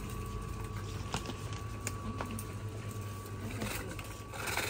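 Small plastic toy shopping cart rolling over a tiled floor, its wheels rattling with a few sharp clicks, over a steady low electrical hum. A short scratchy burst of noise near the end.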